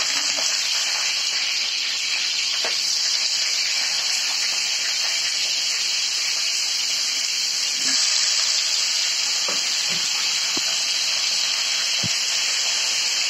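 Eggplant pieces frying in hot oil in an iron kadai: a steady sizzle that grows a little louder about eight seconds in, with a few faint clicks.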